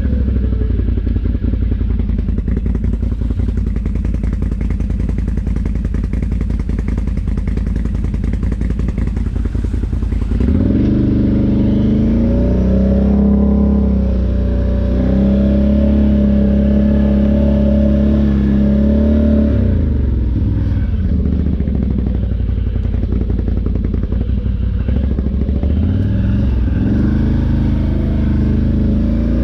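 ATV engine running at low revs with a rattly clatter, then revving up about ten seconds in and holding higher revs, easing off, and climbing again near the end.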